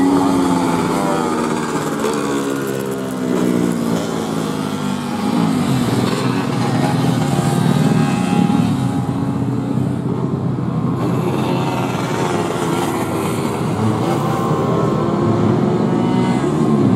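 Several two-stroke 125 cc underbone racing motorcycles accelerating hard and racing, their engines overlapping. The engines rev up and drop back again and again as the bikes change gear.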